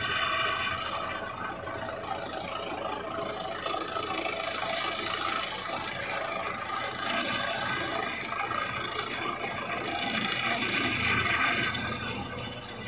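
Police helicopter hovering overhead: a steady drone of rotor and turbine with a whine of several even tones, swelling a little about ten seconds in.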